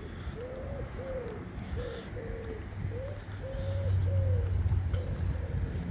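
A bird cooing in a string of short, arched hoots, with a low rumble underneath that grows louder around the middle.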